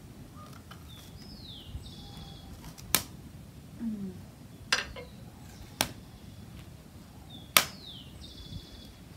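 Wood fire in a fire pit crackling, with four sharp pops about a second or two apart, the loudest near the end. A bird calls twice in the background, a short falling note followed by a buzzy one.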